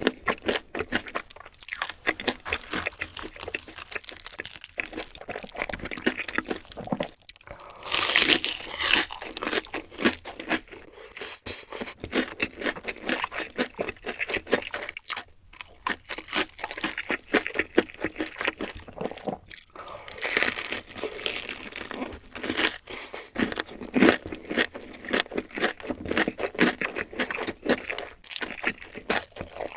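Close-miked eating sounds: continuous wet chewing and crackling crunches of food, with two louder crunchy stretches, about eight seconds in and about twenty seconds in.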